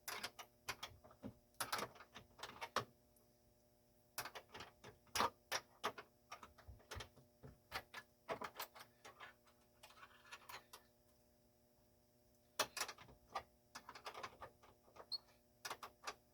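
Metal wrenches clicking and clinking against a refrigerator door's hinge bolt and nut in irregular short bursts as the bolt is worked loose, with brief pauses.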